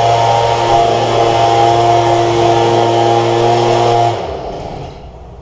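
Handheld leaf blower running steadily at one speed, then shut off about four seconds in, its sound dying away over the next second.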